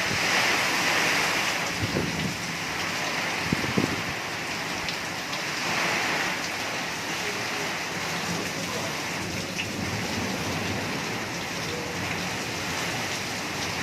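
Heavy rain falling steadily, a dense hiss of rain on surfaces, with a few brief knocks about two and three and a half seconds in.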